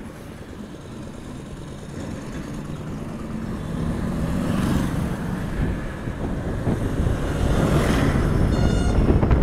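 Road and traffic noise from riding an Ola S1 Pro electric scooter as it pulls away and gathers speed, growing steadily louder. A brief high-pitched tone sounds near the end.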